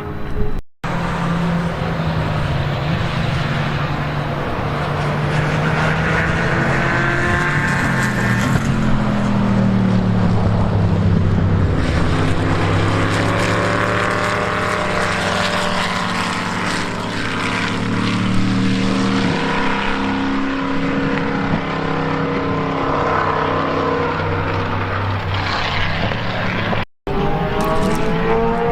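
Racing car engines at full song on track, pitch climbing and stepping down repeatedly as they run up and change through the gears. The sound cuts out briefly twice, under a second in and near the end.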